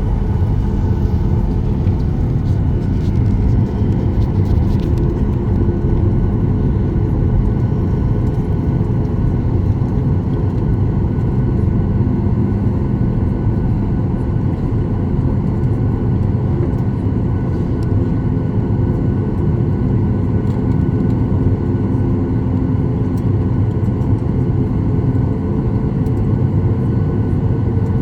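Jet airliner cabin noise: a loud, steady low rumble of the engines and airflow, with faint engine tones that rise slightly near the end.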